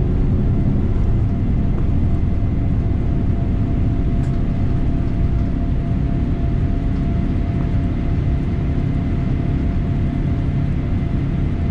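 Cabin noise of a Boeing 787 at take-off thrust through lift-off and initial climb: the steady, loud low rumble of the Rolls-Royce Trent 1000 engines and rushing air, with a faint steady whine above it.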